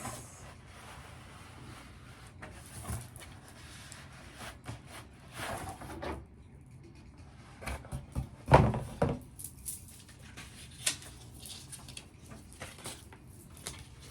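Package being opened and handled: rustling and scattered knocks, with one louder thump about eight and a half seconds in.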